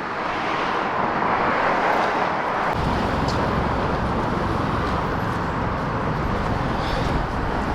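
Steady road-traffic noise, with a low rumble that comes in about three seconds in and continues.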